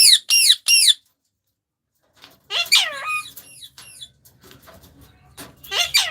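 Pet parrots calling in short, high-pitched squawks that sweep down in pitch, a few in quick succession at the start, a longer run a couple of seconds later and more near the end, with a brief silence in between.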